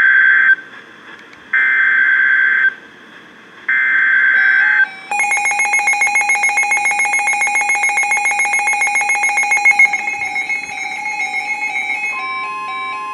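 Emergency Alert System header: three roughly one-second bursts of screeching SAME digital data tones with short pauses between them. Then a rapidly pulsing electronic alert beep sounds for about seven seconds, and a few stepped tones and a steady alert tone begin near the end.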